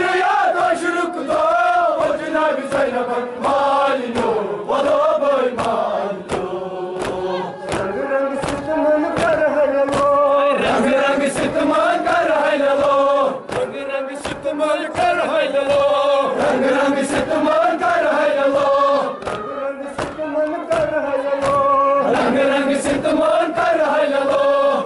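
Crowd of men chanting a Kashmiri noha, a Muharram lament, together in a rising and falling melody. Regular sharp slaps, typical of matam chest-beating, keep the beat under the voices.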